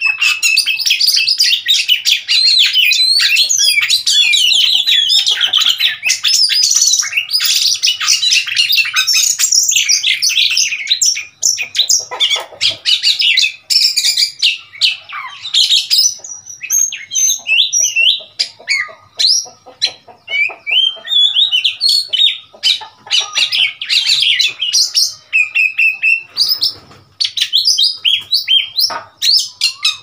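Oriental magpie-robins singing: a fast, varied stream of whistles and chirps, nearly unbroken for the first ten seconds or so, then coming in shorter phrases with short pauses between them.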